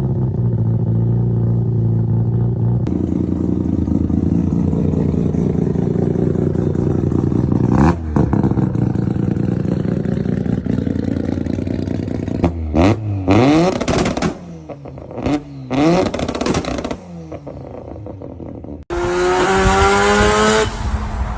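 Mazda RX-7 twin-rotor rotary engine running through its exhaust: steady idle at first, then sharp revs that rise and fall several times from about twelve seconds in, and near the end a hard rev climbing in pitch. The sound changes abruptly at a few points where separate recordings are joined.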